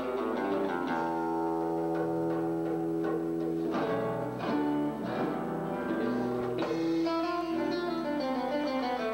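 Live band playing belly dance music led by guitar, with long held notes and plucked string notes.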